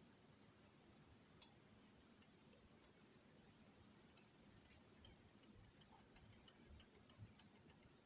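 Faint small clicks of a lock pick working inside a Miwa/Anker 3800 cylinder while it is being picked: a few scattered ticks at first, then quicker, about two or three a second, in the second half.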